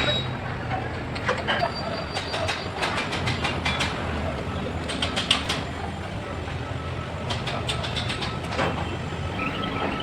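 Steady mechanical hum and noise with repeated runs of quick clicks and knocks, several strokes in each run.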